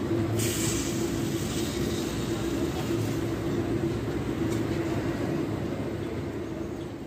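Steady mechanical hum of a running motor with one constant tone, easing off slightly near the end.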